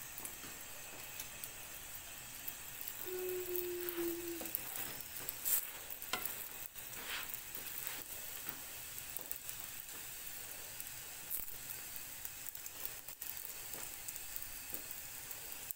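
Msemen flatbread frying in a pan over low heat, a steady soft sizzle with a few faint clicks.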